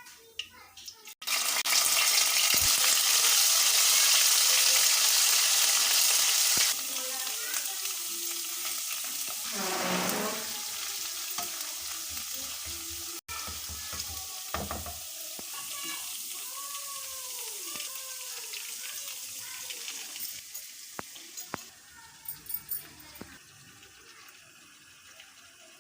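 Food frying in hot oil in a pan: a loud sizzle starts suddenly about a second in, drops to a quieter, steady sizzle after about seven seconds and fades near the end.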